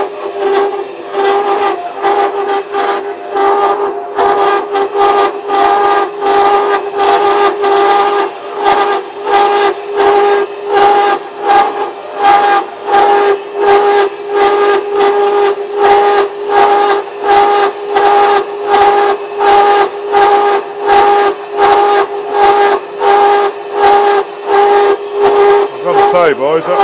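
Homemade slitting saw cutting a slot in a metal block on a milling machine, giving a loud ringing squeal in two steady pitches that swells and fades about once a second; it sounds bloody awful.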